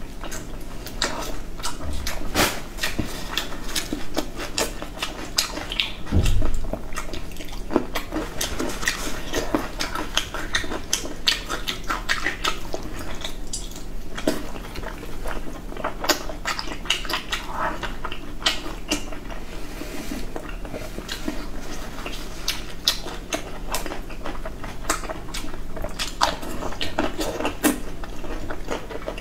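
Close-up eating sounds of greasy braised sheep intestine being bitten and chewed: a steady run of irregular wet smacks and clicks from the mouth and food, with a dull bump about six seconds in.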